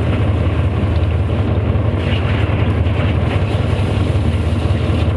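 Fishing boat's engine running with a steady low drone, under a constant hiss of wind and water.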